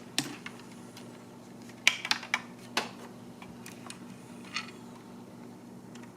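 Hard plastic parts of a bidet seat clicking and knocking as the water heater part is worked loose from its connection: a few sharp clicks, most of them bunched together around two to three seconds in, then a short scrape. A low steady hum runs underneath.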